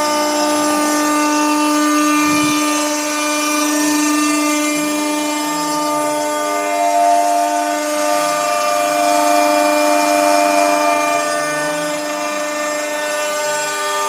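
Minimo 0609TT desktop CNC router milling a 2 mm-deep spiral groove in 14 mm plywood: the spindle runs with a steady whine over the noise of the cutter in the wood, with fainter tones coming and going. A brief low knock about two seconds in.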